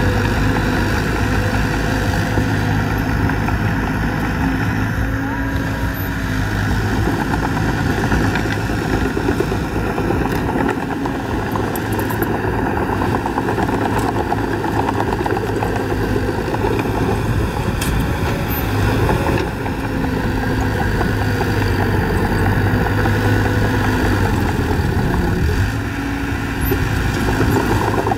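Diesel engine of a Mitsubishi BD2G mini crawler bulldozer running steadily as it pushes dirt and rock with its blade.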